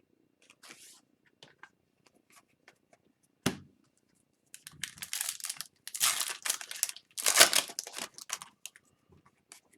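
A 2021-22 Upper Deck Series 2 hobby card pack's wrapper being torn open and crinkled, in several scratchy bursts over the second half, after a single sharp tap about three and a half seconds in.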